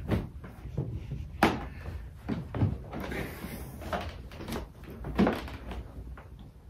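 Irregular knocks and thumps from a swivel chair being handled and carried, with footsteps; the loudest knocks come about a second and a half in and about five seconds in.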